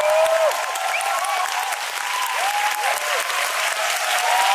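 Audience applauding after a choir song ends: a dense patter of many hands clapping, with several whooping cheers that rise and fall in pitch.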